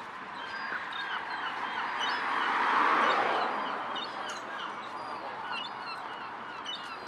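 Gulls calling repeatedly in short, high cries throughout. A broad rushing noise swells to its loudest about three seconds in, then fades.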